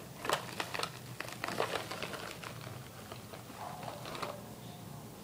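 Plastic eyeshadow cases and other makeup items clicking and clattering as they are handled, a run of light clicks and taps that thins out after about three seconds.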